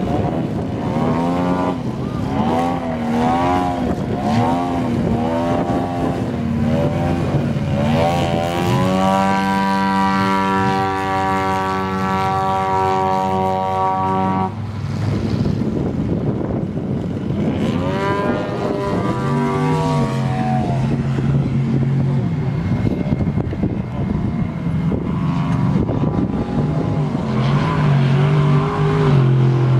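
Radio-controlled aerobatic model airplane's engine and propeller running in flight. The pitch rises and falls about once a second as it manoeuvres, holds one steady high pitch for about five seconds near the middle, and settles to a lower steady pitch near the end.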